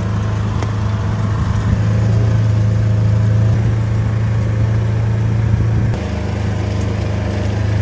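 A vehicle engine running at a steady speed, easing off slightly about six seconds in.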